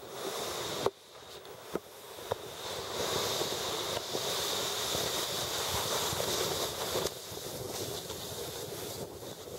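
Sled sliding fast down a snowy hill: a steady hiss of the sled on snow mixed with wind on the microphone, growing louder about three seconds in. A few sharp knocks come in the first couple of seconds.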